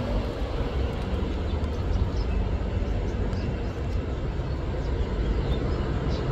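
Steady low rumbling outdoor background noise, with a few faint short high chirps now and then.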